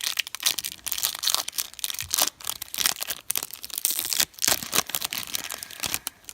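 The wrapper of a Topps Fire baseball card pack being torn open and crinkled by hand: a dense run of crackling rips that dies away near the end.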